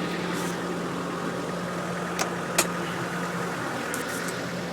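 A 1988 Takeuchi TB68 excavator's Nissan six-cylinder diesel idling steadily, with two sharp clicks about two seconds in.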